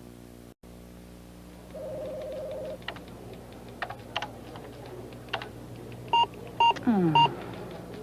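Computer keyboard keys clicking, with a short buzzing tone about two seconds in, then three short loud electronic computer beeps and a falling tone near the end, over a steady low hum.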